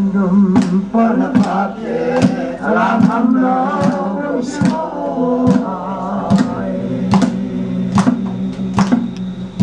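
A group of men and women chanting a traditional song together, kept in time by a sharp hand clap about every 0.8 seconds.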